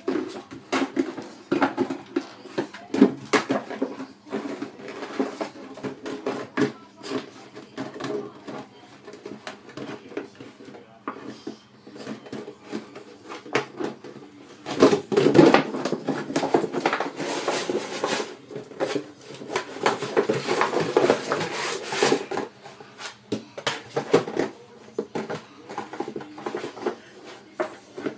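A plastic milk bottle being chewed, pawed and pushed about by a small dog: irregular hollow knocks, clicks and crackles of the plastic, busiest and loudest about halfway through.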